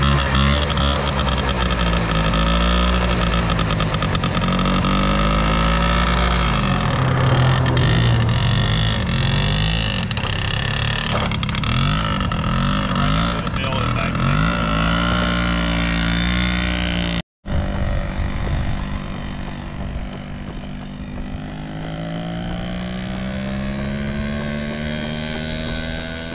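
Peugeot 102 SP moped's small two-stroke engine running just after a cold start, revved up and down repeatedly as it pulls away. After a sudden cut, the same moped is heard farther off, its engine note rising steadily as it rides along the road.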